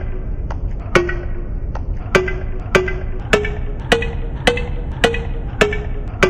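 A short percussive hit sample repeated about every 0.6 s, each stroke pitch-shifted so that the series plays a simple tune, over a steady low rumble.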